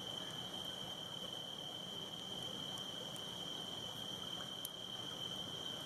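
Insects trilling on one steady high note over a low hiss, with one faint campfire crackle a little before the end.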